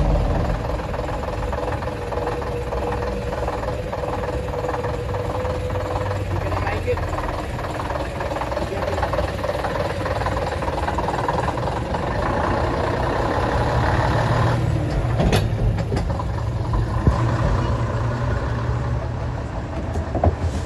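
A heavy vehicle's engine running steadily, with people talking in the background and a few sharp clicks near the end.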